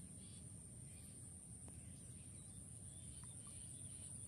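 Near silence: faint outdoor background with a steady high-pitched whine over a low rumble, and a single faint click about a second and a half in.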